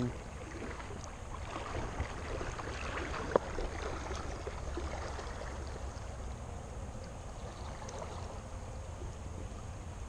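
Steady rush of river water flowing over shallows, with a small click about two seconds in and a sharper click about three and a half seconds in.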